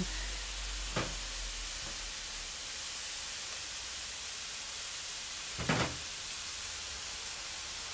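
Vegetables and chicken sizzling steadily in a hot wok on a charcoal kettle grill, a faint even hiss. A short click about a second in and a brief knock just before six seconds.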